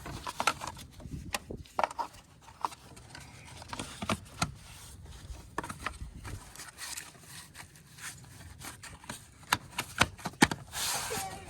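Irregular clicks, knocks and scrapes of hand work on car battery and engine-bay parts, with a cluster of louder knocks near the end.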